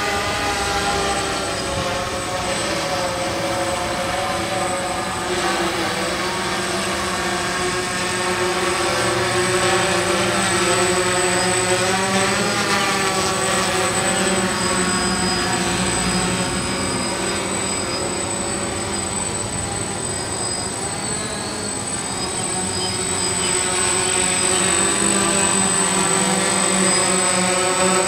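DJI hexacopter's six electric motors and propellers whirring in flight, a steady multi-toned buzz whose pitch wavers as the motors speed up and slow down. It grows louder near the end as the craft hovers low and close.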